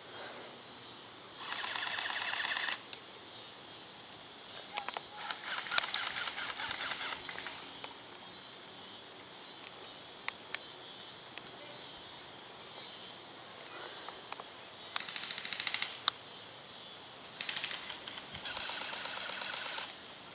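Airsoft electric guns firing on full auto: about five rapid bursts of one to two seconds each, with scattered single shots between them.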